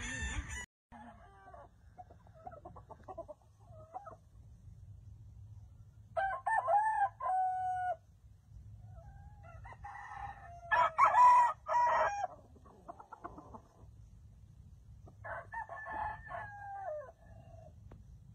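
Gamefowl roosters crowing three times, each crow lasting about two seconds and spaced a few seconds apart, with softer short clucks before the first crow.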